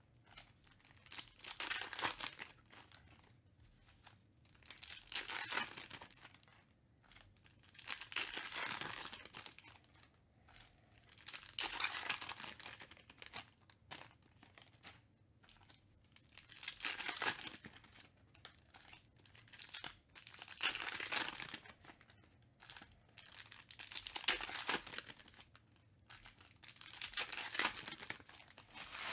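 Foil trading-card packs being torn open one after another, the wrappers tearing and crinkling in bursts every few seconds.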